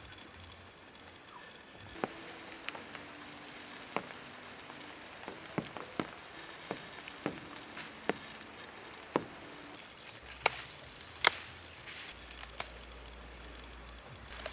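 Lemongrass stalks being plucked and snapped off by hand: scattered sharp snaps, the loudest a pair near the middle. Behind them a high insect trill, with a fast-pulsing insect call from about two seconds in until just before the loudest snaps.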